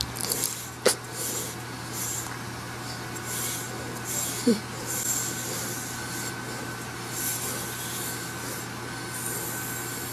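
Soft rubbing strokes of a brush over a dog's short fur close to a microphone, repeating about once a second. A sharp click comes about a second in, and a short low sound about four and a half seconds in.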